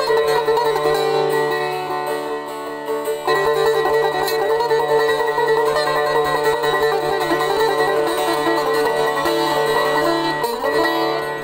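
Background instrumental music: a plucked string instrument playing a wandering melody over steady held drone tones.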